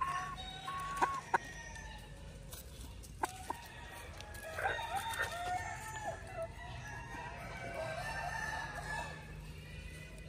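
Ayam Cemani chickens calling, with clucking and rooster crowing in several bouts. A few sharp clicks come in the first few seconds.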